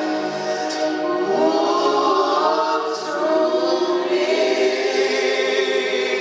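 Gospel choir singing live with lead vocalists, holding long sustained chords.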